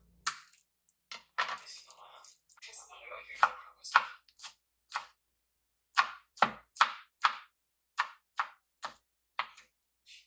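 Knife chopping on a cutting board: uneven strokes at first, settling into a steady run of about two to three chops a second for the second half.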